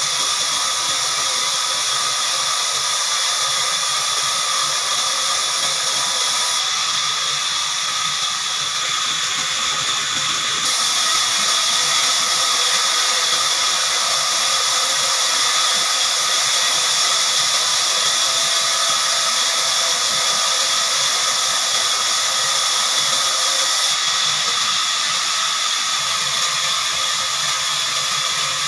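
Heavy-duty horizontal band sawmill running steadily, a continuous high-pitched noise with almost no bass.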